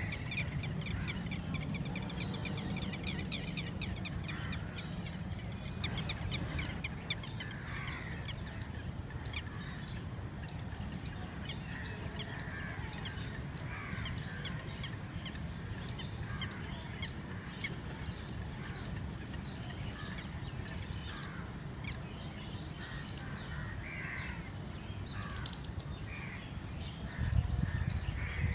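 Red-wattled lapwings giving repeated shrill calls, with a quick run of notes at the start. A regular ticking, a little under two ticks a second, runs beneath from a few seconds in, and a low rumble swells near the end.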